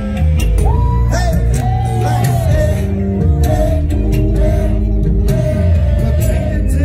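Live R&B song played loud through a PA: a heavy bass beat and percussion, with a singer's drawn-out, wordless notes gliding up and down over it.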